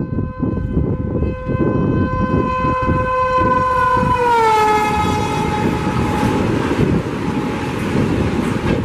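WAP-7 electric locomotive sounding its horn in one long blast as an express passes at about 130 km/h; about four and a half seconds in the horn's pitch drops as the locomotive goes by, and the horn fades soon after. Wheel beats, then the loud rush of the coaches passing at speed, run underneath.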